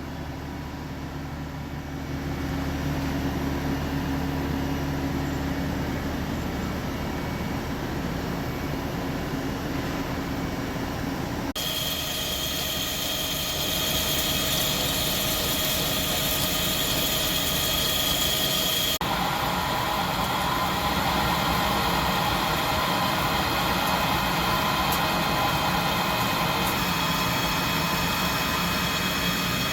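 Hankook Protec 7NA CNC lathe running, a steady mechanical whir and hum of the machine at work. The sound changes suddenly twice, with a high steady whine over the noise after the first change.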